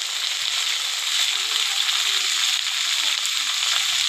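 Sliced onions freshly added to hot oil in a kadhai, sizzling with a loud, steady hiss.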